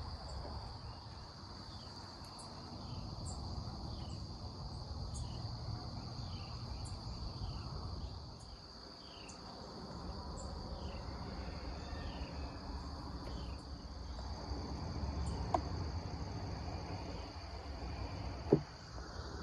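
Summer garden insect chorus: a steady, high-pitched drone, joined for about the first half by a short falling chirp repeated roughly every two-thirds of a second, over a low rumble. A single sharp click near the end.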